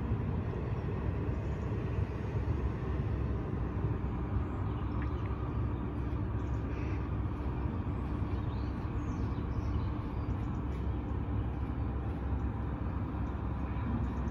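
Steady low rumble of distant vehicles, with a few faint bird chirps.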